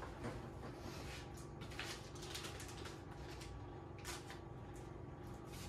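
Faint rustling and light clicks of small hardware packets, bags of screws, being picked up and handled, over a faint steady hum.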